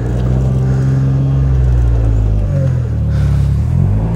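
John Deere Gator utility vehicle's engine revving under throttle while stuck in snow, easing off about two and a half seconds in and then revving up again. The rear wheels are struggling for grip: the open differential sends the power to the rear wheel without zip ties, which spins.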